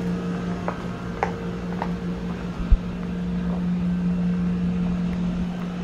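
Steady low mechanical hum of an outdoor air-conditioner unit running, with wind rumbling on the microphone. A few brief high ticks come early, and there is one sharp low thump a little under three seconds in.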